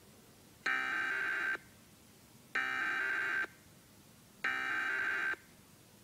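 Emergency Alert System SAME header: three bursts of digital data tones, each just under a second long and about a second apart, played through a TV speaker. They open an EAS Required Weekly Test.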